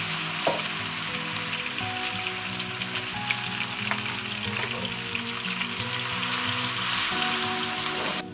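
Cubes of marinated mahi-mahi sizzling in very hot oil in a wok, left untouched to brown; a steady hiss with small crackles that cuts off suddenly near the end.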